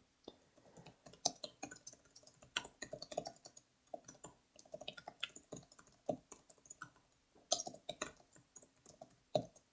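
Typing on a computer keyboard: faint, irregular keystrokes in quick runs with short pauses between words.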